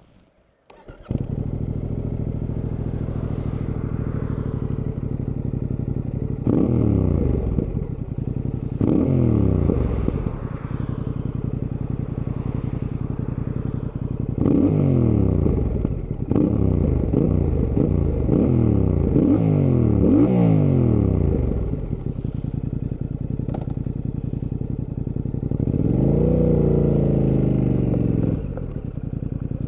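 Fantic Caballero 700's parallel-twin engine starting up about a second in and idling, then revved in a string of short blips, with one longer rev near the end.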